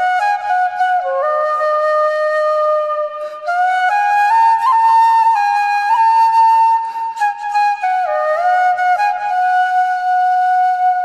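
Background music: a slow solo melody on a flute-like wind instrument, its notes sliding from one to the next, with a brief pause about three seconds in.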